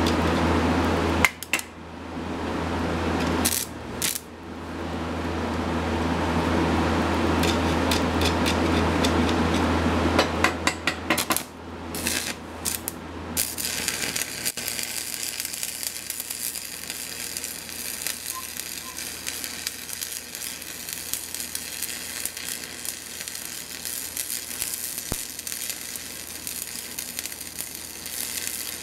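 A steady humming roar with a few brief breaks and some sharp clicks, then, about 14 s in, the even crackle and sizzle of an electric welding arc welding an extension onto a steel steam-engine crankshaft.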